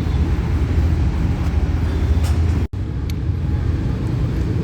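Steady low rumble of background noise, broken by a sudden brief cut a little past the middle.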